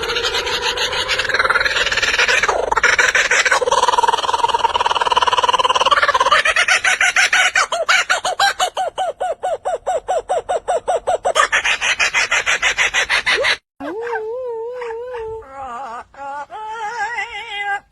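Birds calling: loud, pitched calls that break into a fast rattling trill, then, after a sudden cut about fourteen seconds in, a wavering whistled warble.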